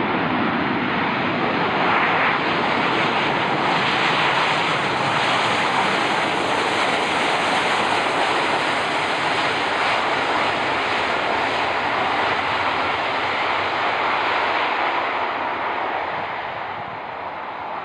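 Jet engines of a Boeing 737-800 (CFM56-7B turbofans) heard close by as the airliner passes on arrival: a loud, even rush that swells in the first second and eases off near the end.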